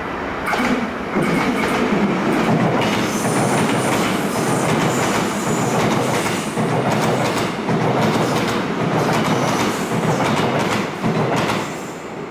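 Korail electric multiple-unit train passing close by at speed, its wheels clicking repeatedly on the rails. The sound comes up sharply about half a second in and fades near the end as the last cars go by.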